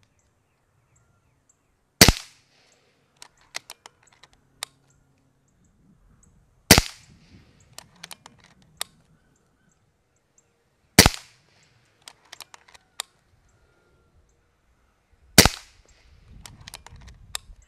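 Kral Puncher Breaker .22 PCP bullpup air rifle fired four times, about four seconds apart, each shot a sharp crack. Each shot is followed by a few lighter mechanical clicks as the action is cycled for the next pellet.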